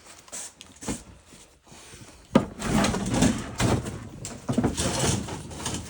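Handling noise of gas pipe fittings and tools: a few light clicks, a sharp knock a little over two seconds in, then several seconds of scraping and rattling.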